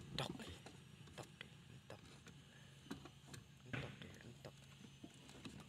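Faint scattered clicks and knocks of a Honda Mobilio's plastic fuel pump assembly being lifted out through the fuel tank opening, with two louder knocks, one just after the start and one about two-thirds through.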